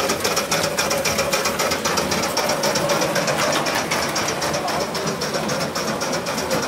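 Gauge 1 live-steam model locomotive running with a train on the track, giving a rapid, even, machine-like patter of exhaust beats and running noise.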